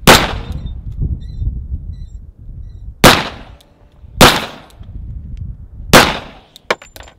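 Four pistol shots fired at an uneven pace, a second to three seconds apart, each with a short echoing tail, followed near the end by a few fainter sharp cracks.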